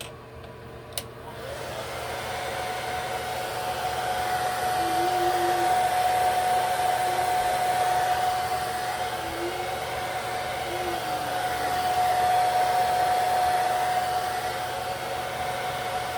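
Hand-held hair dryer switched on about a second in, then blowing steadily with a constant whine, getting louder and softer as it is moved around, drying the lace wig adhesive until it is tacky.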